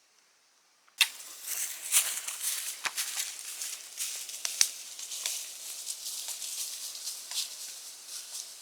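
Dry leaf litter rustling and crunching with sharp snaps, as of footsteps through dry leaves. It starts suddenly about a second in, after near silence, and carries on unevenly.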